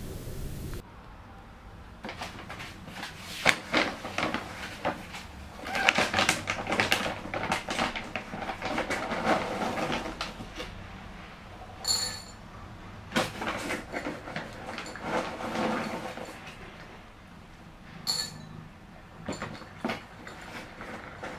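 Dry cat food rattling into a bowl as it is poured from a crinkling plastic bag, with a couple of sharp clinks along the way. Near the end, a cat crunching the kibble.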